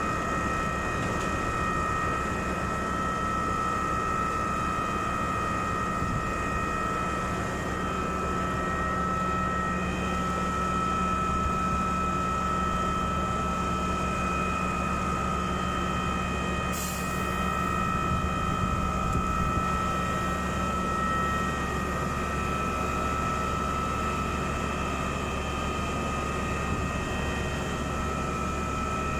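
Putzmeister 42-5 truck-mounted concrete pump running steadily, its engine and hydraulics giving a steady noise with a high whine, as the boom is folded. A single sharp click sounds about seventeen seconds in.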